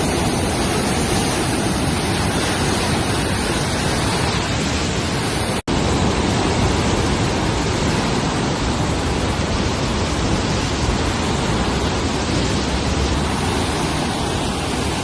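Swollen floodwater rushing past in a steady, loud roar of noise, cut off for a split second about five and a half seconds in.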